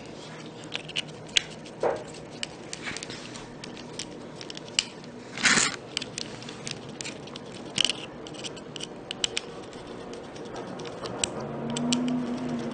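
Irregular small clicks, taps and light scrapes of small plastic and metal parts and tools being handled during hands-on assembly, with one louder clack about five and a half seconds in.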